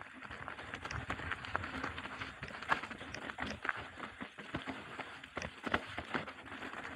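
Rocky Mountain Element C70 full-suspension mountain bike rolling over a rough gravel trail: tyre crunch under a dense run of irregular clicks and knocks from the bike.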